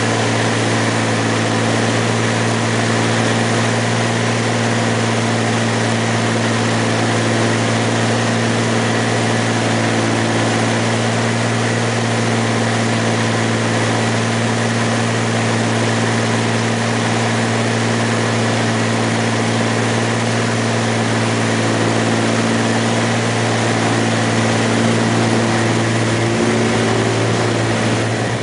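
Single-engine light aircraft's engine and propeller droning steadily, heard from inside the cockpit, over a constant rush of air.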